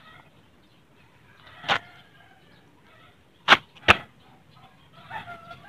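Sharp knocks from the motorcycle being handled by hand during the oil change: one, then two close together about halfway, the loudest sounds here. Chickens cluck faintly near the end.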